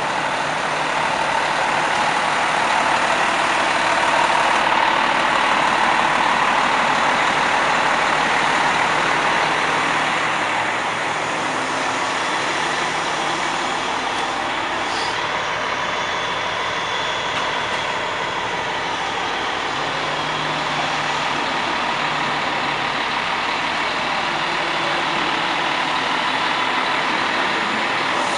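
Fire truck's engine running close by, loudest for the first several seconds as the truck pulls in, then idling steadily.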